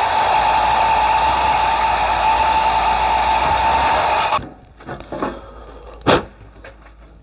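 Cordless drill driving an Armeg hole cutter through 75mm steel trunking: a loud, steady grinding whine with a high ringing tone that stops abruptly about four seconds in. Then light metallic clatter and a sharp knock as the cut trunking is handled.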